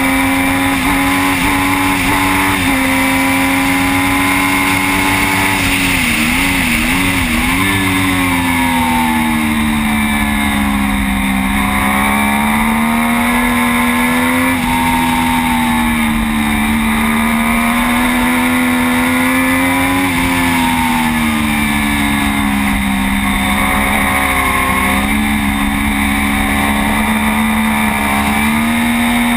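Triumph Daytona 675's three-cylinder engine running hard at racing speed, its pitch sweeping up and down and jumping in steps as the gears change, over a steady rush of wind on the camera.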